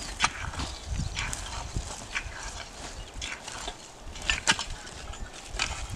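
Irregular knocks and crunches of coa planting sticks jabbed into dry, cloddy soil, with footsteps on the clods, a few sharp strokes scattered through.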